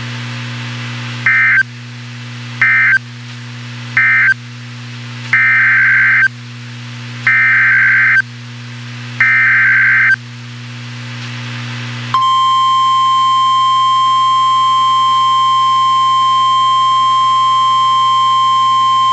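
Emergency Alert System SAME data bursts on a weather-radio alert. First come three short buzzy bursts, the end-of-message code, then three longer ones, the header of the next severe thunderstorm warning, all over a low hum. About twelve seconds in, a steady warning alarm tone just above 1 kHz starts and holds.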